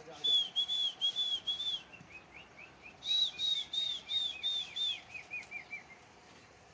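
Whistling at a flock of flying pigeons: two runs of short rising-and-falling notes, about three a second, with a lower, quicker string of notes under the second run. It stops about six seconds in.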